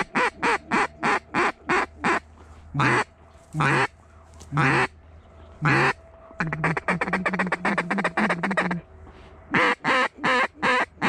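Mallard duck call blown close by: a quick run of loud short quacks, then four longer drawn-out quacks, then a rapid feed chatter lasting about two seconds, then another run of short quacks near the end.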